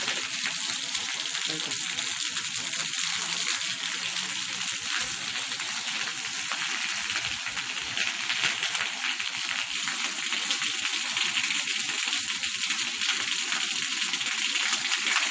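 A steady crackling hiss, strongest in the upper range, with no speech.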